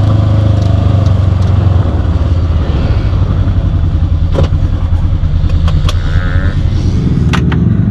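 Polaris RZR side-by-side's engine running steadily under way, easing off about two seconds in, with a few sharp knocks from the vehicle rattling over the trail near the middle and end.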